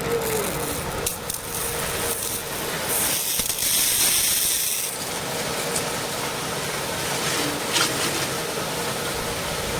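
Washing-station water pump motor running and a pressure-washer water jet spraying, with a louder high hiss for about two seconds near the middle.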